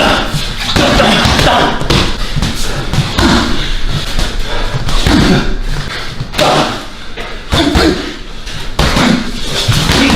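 Repeated thuds and slams of an MMA fight: strikes landing and bodies hitting the canvas and cage, with voices shouting between them.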